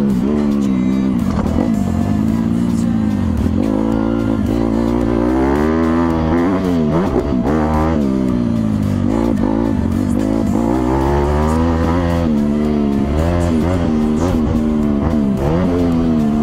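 Motocross dirt bike engine revving under the rider, its pitch climbing and dropping again and again with throttle and gear changes, with background music playing along.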